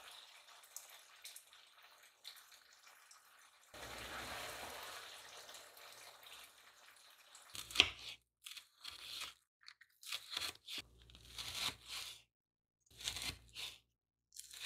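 Knife cutting frozen green onions on a wooden cutting board: crisp crunching cuts in short runs, starting with a sharp knock a little over halfway through. Before that, a soft sizzle from sauce being stirred in a pan.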